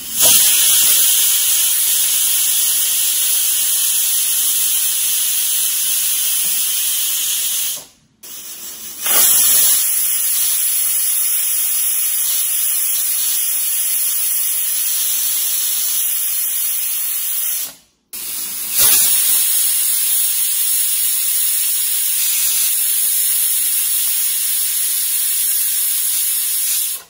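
Steady hiss of steam venting from a stovetop pressure cooker's valve: the cooker has come up to pressure. The hiss breaks off twice briefly, about a third and two thirds of the way through.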